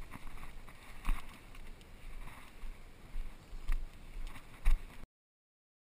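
Wind rumbling on a body-worn action camera's microphone, with a few sharp knocks and handling bumps. The sound cuts off abruptly about five seconds in.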